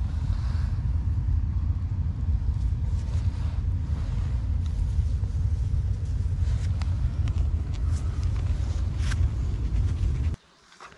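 Steady low rumble of wind on the microphone, with a few faint clicks as the dug-up sword and soil are handled; the rumble cuts off suddenly near the end.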